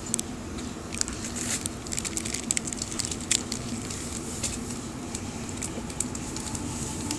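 Steady running rumble and hum inside a Millennium (M-set) electric passenger train, with many small crackling clicks over it.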